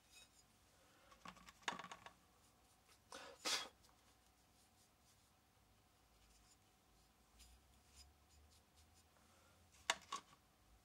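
Light knocks and clinks of copper boiler tubes being picked up and handled: a few about two seconds in, a louder one about three and a half seconds in, and two more near the end, with near silence between.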